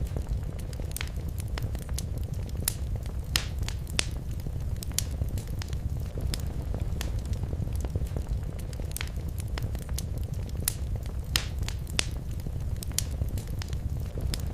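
Wood fire burning in a fireplace: a steady low rumble with irregular sharp crackles and pops.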